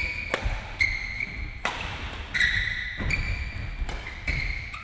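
Badminton rackets hitting a shuttlecock in a fast doubles rally: four sharp smacks about a second and a half apart. Between the hits come short high squeaks of shoes on the hall floor.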